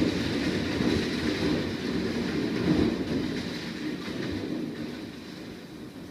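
Storm wind rumbling against a metal scaffold wrapped in netting, with clattering as the scaffold is bent and torn off the building. The rumble eases off over the last two seconds.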